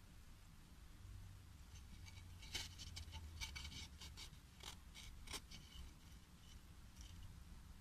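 Near silence over a low hum, with a few faint scratches and light clicks in the middle: fingers handling and rubbing a pellet-pierced pine board.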